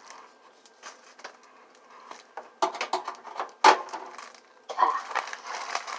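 A package being opened by hand: scattered rustles, crinkles and knocks of the packaging, the loudest knock a little past halfway.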